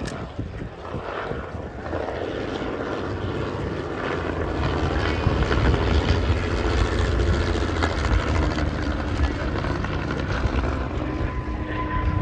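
A P-51D Mustang's Merlin V12 engine and propeller during a flying display. The engine gets louder about two seconds in and then holds a steady, loud run as the aircraft passes.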